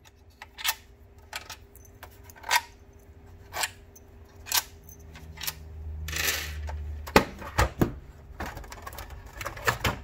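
Irregular clicks and knocks of a plastic instrument cluster being handled on a workbench, with small screws being set down, plus a short sliding, humming noise about six seconds in.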